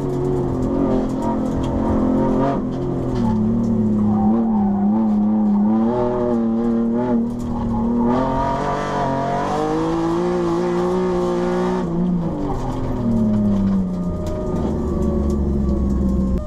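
Ford Contour SVT's 2.5-litre V6 engine heard from inside the cabin on an autocross run, revving up and down between cones, holding a steady pitch at times and dropping off steeply about three-quarters of the way through.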